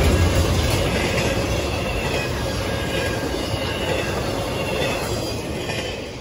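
Train cars rolling past on the rails, with a steady rumble and faint high wheel squeal, fading away near the end.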